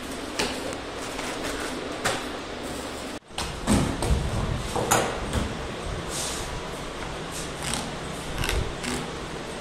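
Handling sounds of work on a snooker table: scattered knocks and rustles of plastic-wrapped parts in a cardboard box, then, after a brief break, knocks and scraping of a metal hand tool against a wooden cushion rail as the old cloth is stripped off.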